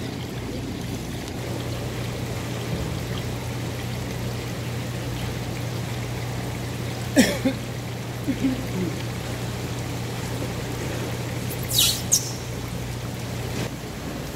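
Water trickling in live-seafood tanks over a steady low hum, which cuts off near the end. Two short, sharp sounds stand out, about seven and twelve seconds in.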